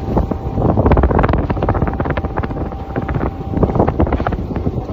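Strong wind buffeting the microphone in uneven gusts, over the low rumble of a boat on rough sea.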